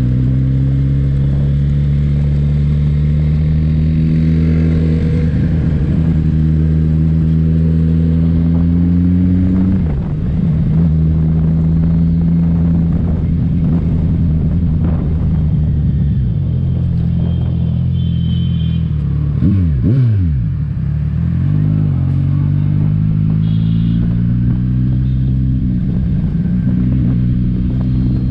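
Kawasaki Ninja 1000's inline-four engine running under way, its revs climbing slowly in gear. The revs fall away briefly about ten seconds in and again around twenty seconds in, then pick up and climb again.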